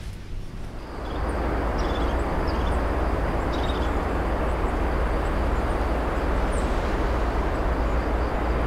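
Steady outdoor rumble: an even noise with a strong low end that swells about a second in and then holds. Faint short high chirps sound over it now and then.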